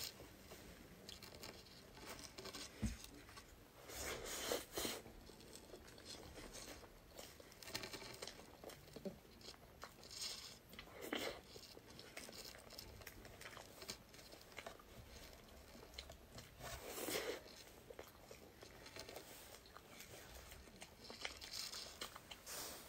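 Close-miked eating: chewing and wet mouth sounds of a whipped-cream cake topped with mango cubes, eaten off a plastic fork. Faint small clicks and smacks, with louder bouts of chewing every few seconds.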